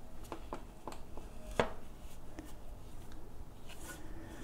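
Scattered light clicks and knocks of hands handling something, the loudest about a second and a half in.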